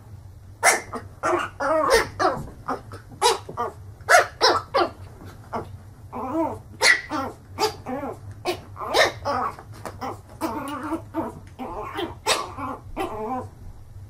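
Small puppy barking at its own reflection in a mirror: a long run of short, high-pitched yaps, two or three a second, with brief pauses.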